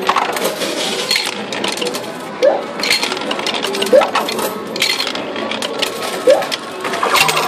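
2p coins dropping into a coin-pusher arcade machine and clinking onto its playfield, a few seconds apart, over a busy bed of arcade noise.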